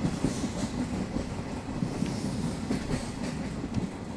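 Passenger train running at speed: a steady rumble of the carriages with irregular clatter from the wheels and coaches.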